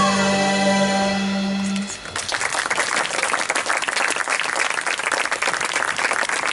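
Live rock band's final held chord on electric guitars, bass and keyboards, ending sharply about two seconds in, then audience applause.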